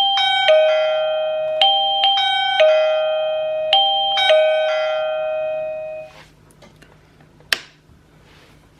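DN Vision wireless plug-in chime, paired with the video doorbell, ringing a two-note ding-dong tune, high note then low, several times over, the tones fading out about six seconds in. A single sharp click follows a little later.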